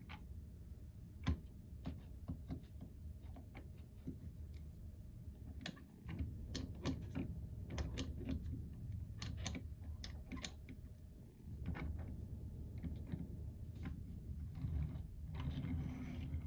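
Plastic toy pieces and packaging being handled: scattered sharp clicks and taps, crowded together in the middle, then a stretch of rustling near the end.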